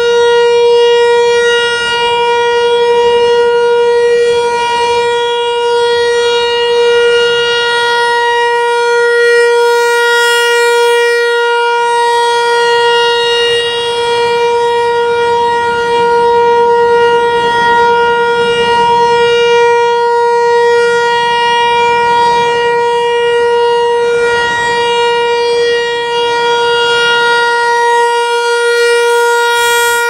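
American Signal T-128 rotating electromechanical storm siren sounding its steady alert signal, one unchanging pitch held throughout. Its loudness swells and fades slightly as the horn turns.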